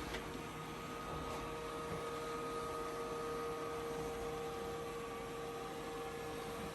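Robot vacuum running: a steady motor hum with a few faint whining tones over a fan hiss.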